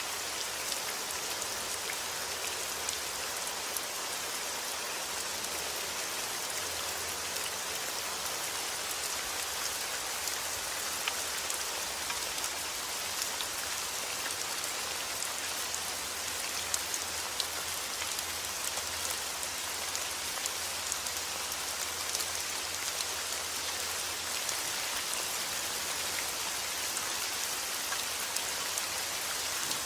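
Steady heavy rain falling outdoors, an even hiss dotted with the ticks of individual drops hitting surfaces.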